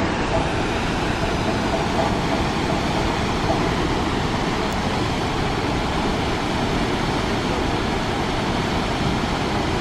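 Waterfall rushing steadily, an even loud wash of falling water.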